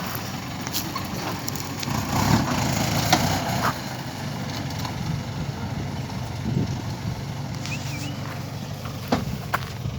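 A motor vehicle engine running steadily at low revs, with a louder stretch about two to four seconds in.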